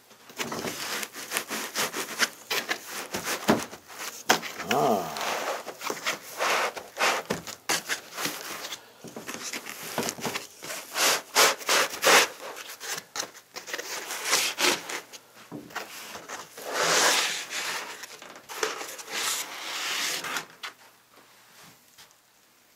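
Foam packing blocks rubbing and squeaking against a cardboard box as they are pulled out by hand, with cardboard scraping and knocking in irregular bursts. It goes quiet for the last couple of seconds.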